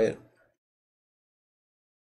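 The last syllable of speech dies away in the first half-second, then complete digital silence: the sound track drops to nothing.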